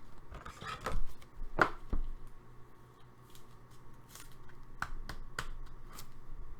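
Hockey trading cards being handled: a few light clicks and rustles, the sharpest about one and a half seconds in.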